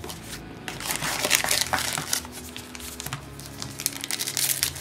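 Trading card pack wrappers crinkling as packs are handled and one is torn open: irregular crackles, thickest about a second in and near the end.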